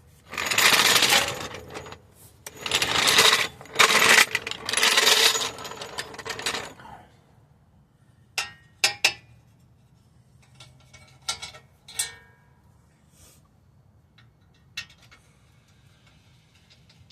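Several loud bursts of rapid mechanical rattling from a power tool working on suspension fasteners in the first seven seconds, followed by a few light metal clinks of tools and parts.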